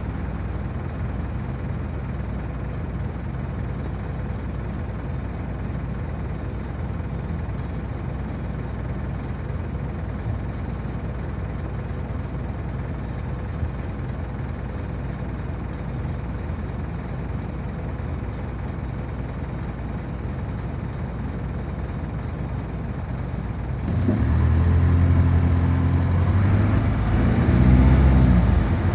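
Diesel bus engine idling steadily, heard from inside the passenger saloon. About 24 seconds in it gets louder and its note rises and shifts as the bus pulls away.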